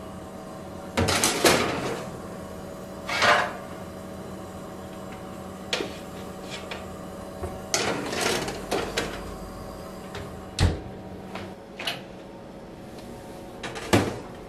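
Oven door opening and metal baking trays being slid out over the oven rack, with a string of separate knocks and scrapes over a steady low hum.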